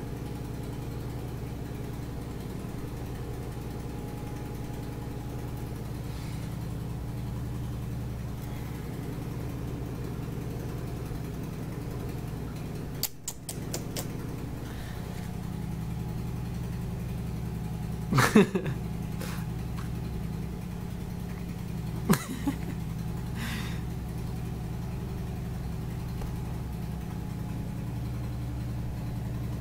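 A cat sneezing twice, two sharp short bursts a few seconds apart in the second half, over a steady low hum. A few clicks come about midway.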